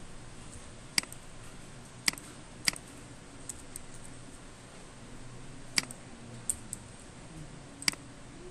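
Scattered sharp clicks of a computer keyboard and mouse: about half a dozen loud ones at irregular intervals, with a few fainter ones between, over faint room noise.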